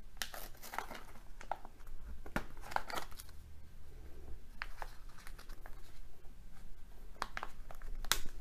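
Hands working at a Kinder Joy's plastic toy capsule, prying at its tab: scattered plastic clicks and crinkling in short clusters with quiet gaps between.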